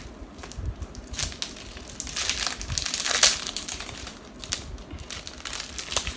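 Kinder Bueno wrapper crinkling and crackling as it is opened, in irregular crackles that are thickest and loudest about halfway through.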